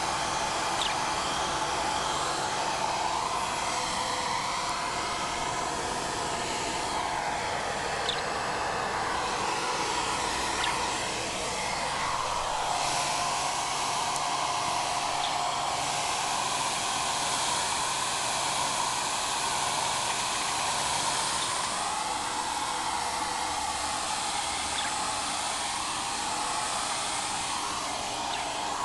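A steady rush of air from an electric blower, such as a hair dryer or fan, drying the birds, with faint wavering budgie chatter over it.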